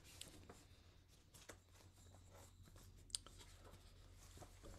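Near silence: faint room tone with a low steady hum and a few soft clicks, the sharpest about three seconds in.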